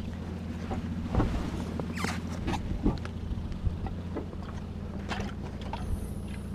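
A vehicle engine idles steadily, with scattered knocks and clatter as gear is handled around a UAZ van's open doors.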